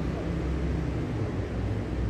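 Diesel engine of a double-decker bus running steadily at low revs, a continuous low hum.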